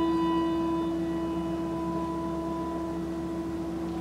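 A bell struck once for a name read at a memorial, ringing on with a steady low tone and a few higher overtones that fade very slowly.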